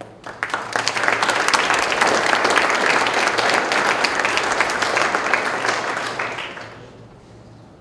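Audience applauding: many people clapping, swelling quickly and then dying away about six to seven seconds in.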